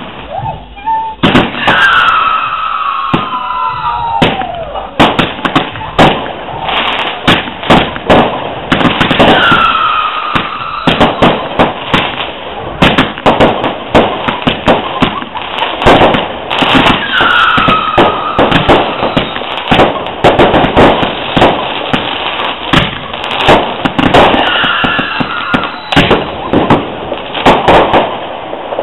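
Fireworks going off in a dense run of bangs and crackles, with several whistles gliding down in pitch spread through it.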